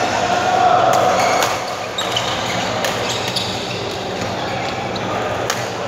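Badminton rally: a string of sharp racket strikes on the shuttlecock, several within a few seconds, over the steady din of a large sports hall with play and voices on other courts.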